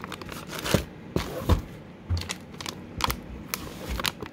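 Irregular clicks, taps and rustling as treat packets are handled and moved around in a fabric bin.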